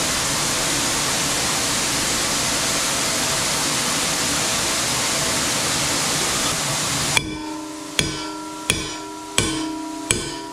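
Steady rushing air noise from a shop fan for about seven seconds, then it cuts off. A hammer then strikes the blower motor's metal parts about once every 0.7 seconds, five blows in all, each leaving a metallic ring: knocking the motor apart to separate its parts.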